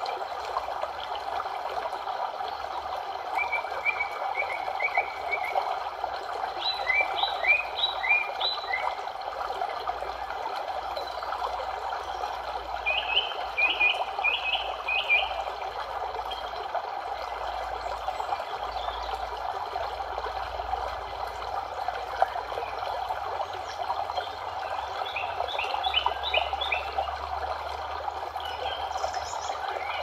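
Steady rush of a flowing stream, with short runs of four or five quick high chirps repeating several times.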